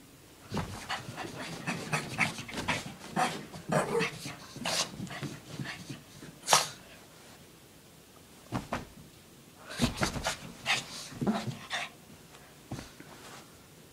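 A Shih Tzu playing with a blanket: panting and snuffling breaths mixed with many short, irregular rustles and scuffs, with a quiet stretch of about a second and a half a little past the middle.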